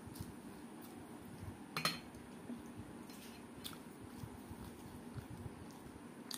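Someone eating by hand: chewing, with fingers working rice on a stainless steel plate and small clicks from the plate and bangles, the sharpest clink about two seconds in.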